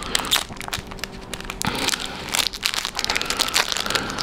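Packaging crinkling and rustling in quick, irregular bursts as a collector's enamel pin is handled and unwrapped by hand.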